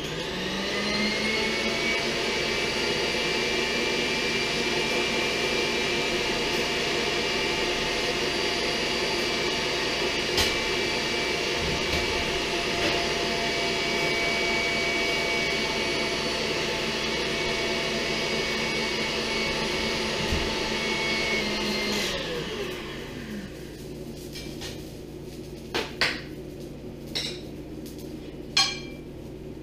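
KitchenAid stand mixer whipping cream that is still too soft: the motor comes up to speed at the start, runs steadily at high speed, then winds down with a falling pitch about three-quarters of the way through. A few light clinks follow near the end.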